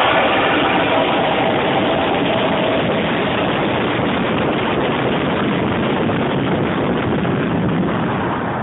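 Air rushing past a high-power rocket's airframe and its onboard camera during the climb toward apogee, a loud steady rushing noise that eases a little toward the end.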